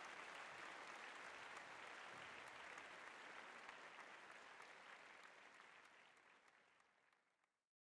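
Faint crowd applause, many hands clapping, fading away over the second half.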